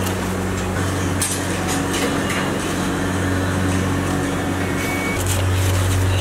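A steady low machine hum over a constant noisy wash, with a few light knocks and clinks about a second and two and a half seconds in as baked puffs and metal trays are handled.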